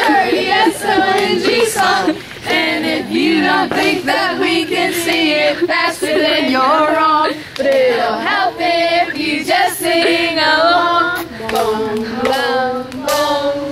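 A group of people singing together, several voices at once, children's and women's voices among them.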